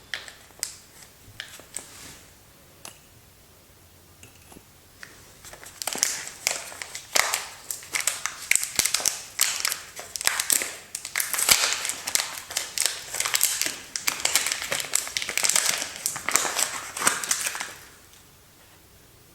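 Soap packaging being opened by hand: a few light crackles, then dense crinkling and rustling of the wrapper for about twelve seconds, stopping shortly before the end.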